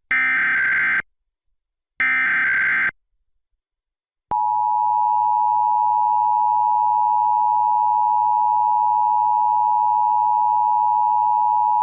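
Emergency Alert System SAME header: the last two of three digital data bursts, each about a second of rapid electronic warble, then after a short gap the steady EAS two-tone attention signal (853 and 960 Hz), beginning about four seconds in and held unchanged. The header and tone announce a required monthly test.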